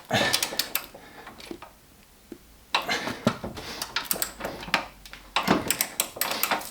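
Ratchet of a torque wrench ticking in quick runs as a strut-brace Torx bolt is tightened, in three spells: near the start, in the middle and near the end.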